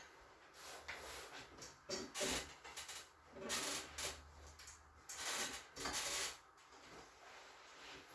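A person turning over from stomach to back on a padded treatment table: clothing rubbing and rustling against the padding in several short bursts.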